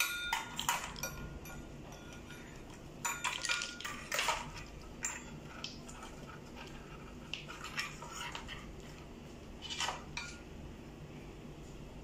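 Plastic wiring-harness connectors and cables clicking and rattling as they are handled and plugged into the rear sockets of a car navigation head unit, in scattered bursts of short clicks.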